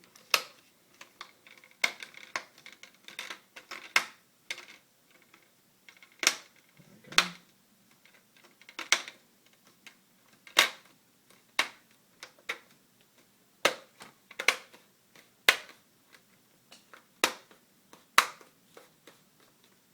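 Plastic display bezel of a Dell Latitude E6330 laptop being pressed back onto the lid along its edges, snapping into its clips with sharp clicks, irregularly about once a second, with fainter handling noises between.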